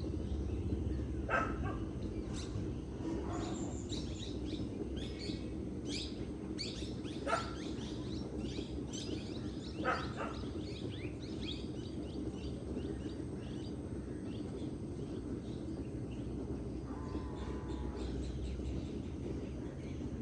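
A chorus of songbirds, chirping and trilling over the steady rush of a forest river. Three louder, sharp calls stand out in the first half.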